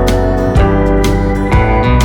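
Background instrumental music with a steady beat, slide guitar and keyboard.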